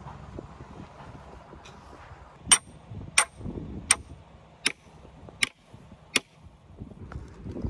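Six sharp metal-on-metal strikes about two-thirds of a second apart, each with a brief high ring, starting about two and a half seconds in.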